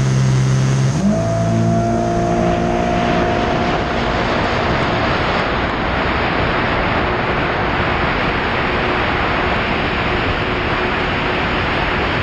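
Jet ski engine at a steady low speed, then opened up to full throttle about a second in, its pitch jumping up. As it gathers speed, a steady rushing noise of wind and water takes over from the engine's tone.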